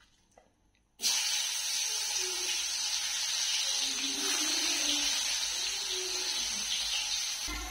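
Food sizzling steadily in hot oil in a cooking pan. The sizzle starts suddenly about a second in, after a near-silent moment, and a low knock of the pan comes near the end.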